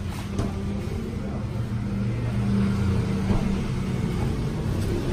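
A motor vehicle engine running steadily, a low continuous hum.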